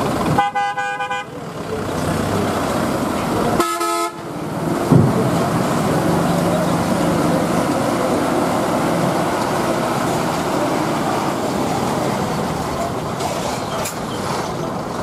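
A truck horn honks twice: a blast of about a second, then a shorter one some three seconds later. Underneath are truck engines running, with a single thump about five seconds in.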